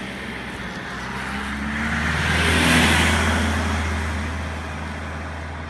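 A car passing by, its low engine hum and tyre noise swelling to a peak about three seconds in and then fading away.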